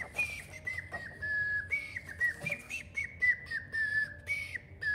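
A person whistling a tune of short notes with little slides between them, imitating a nightingale's song.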